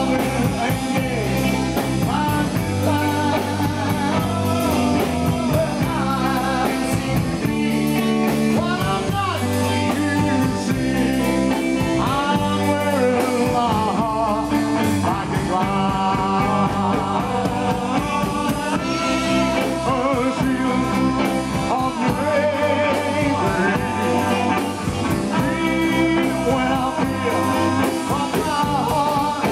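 A live rock and roll band playing: two electric guitars, an electric bass and a drum kit, with a man singing lead over them.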